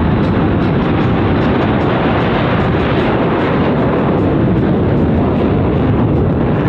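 Four Blue Angels F/A-18 Hornets taking off together in formation, their twin jet engines in afterburner: loud, steady jet engine noise.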